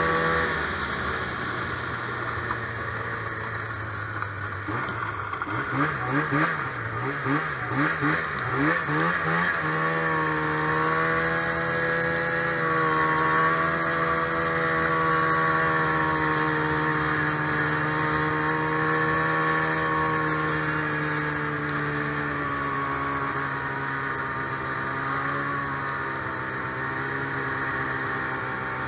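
Polaris snowmobile's two-stroke engine running under way. The pitch drops in the first second, wavers up and down quickly for several seconds with uneven throttle, then settles into steady cruising with slow rises and falls in pitch.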